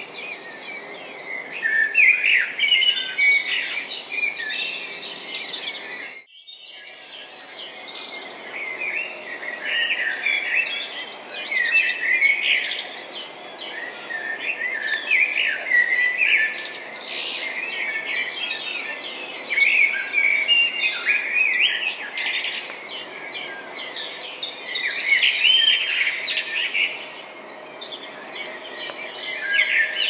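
A dense chorus of many small birds chirping and trilling at once, with a brief drop-out about six seconds in.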